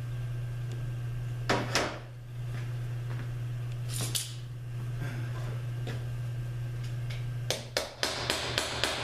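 Metal-on-metal clanks from tools on a Subaru 4AT transmission case: two pairs of sharp knocks, then near the end a run of rapid hammer taps, about five a second, over a steady low hum. The tapping goes with working the transmission case apart at its rusted dowels.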